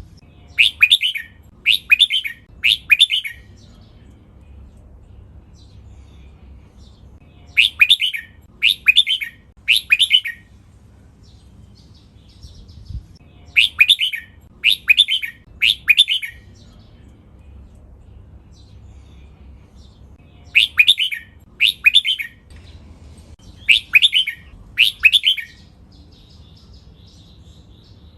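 Red-whiskered bulbul singing: loud, clear song phrases come in quick runs of three, the last two runs only two, with pauses of several seconds between runs.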